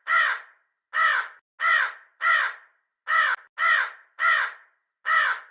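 Crow cawing: a run of about eight short caws in quick succession, with a brief pause near the middle.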